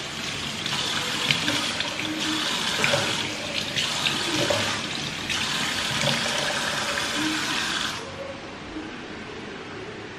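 Kitchen mixer tap running into a steel sink while water is splashed onto a face by hand, with short splashes over the steady flow. The running water drops away about eight seconds in.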